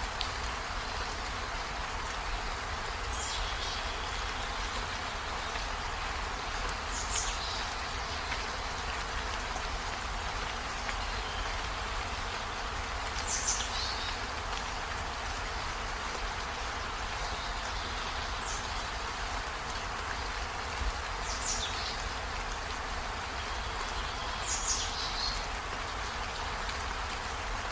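Steady rain falling, an even hiss. About six times, a short high call falls quickly in pitch over the rain.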